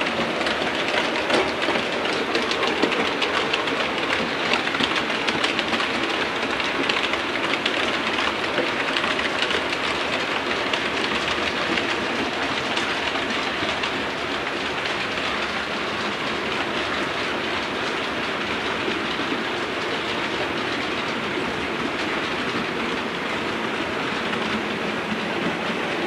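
Model trains running on the layout track: a steady dense rattle of small wheels clicking over rail joints and points, with motor hum underneath, busier and a little louder in the first half.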